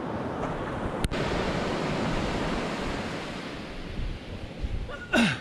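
Surf washing onto a sandy beach, a steady roar of breaking waves with some wind on the microphone. A single sharp click about a second in.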